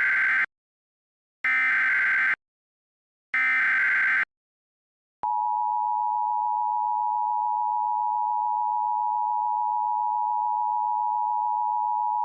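Emergency Alert System SAME header: three short bursts of digital data tones about a second apart. About five seconds in, the EAS attention signal starts, a steady two-tone sound held without a break.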